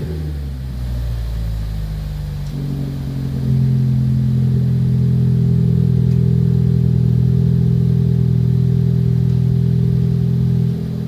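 2016 Ford Focus ST's turbocharged 2.0-litre four-cylinder idling through an aftermarket valved exhaust. About three seconds in the exhaust note turns louder as the valve opens, holds steady, then drops back quieter near the end as the valve closes.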